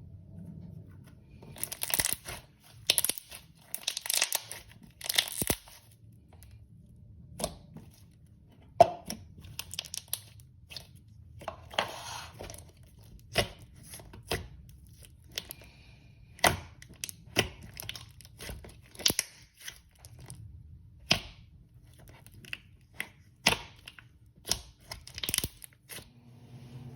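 Thick slime being stretched, squeezed and poked by hand: sticky tearing and crackling as it pulls apart, with scattered sharp pops of trapped air bubbles.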